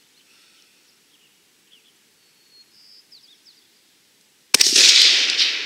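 A rifle shot on a shooting range: one sudden loud crack about four and a half seconds in, trailing off into a long fading echo. Faint bird chirps come before it.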